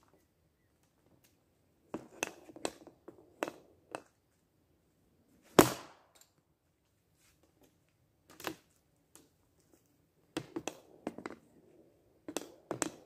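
Hockey stick blade clicking and tapping pucks on a homemade shooting pad. The loudest sound is one sharp crack of a shot a little over five seconds in, then more scattered clicks of stick on puck and pad.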